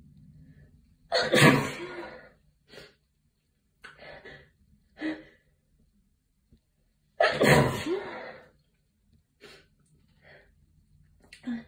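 A person sneezing hard twice into a tissue, about six seconds apart, allergy sneezes. Short gasping breaths come before and between them.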